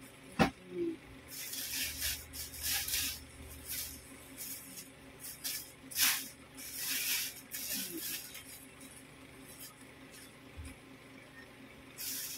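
Bursts of rustling as second-hand clothes are pulled from a plastic bag and shaken out, including a sequined dress, with a sharp click about half a second in.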